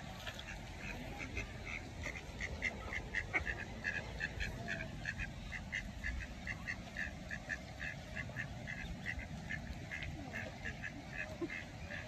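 A brood of mallard ducklings peeping: a continuous stream of short, high peeps, several a second.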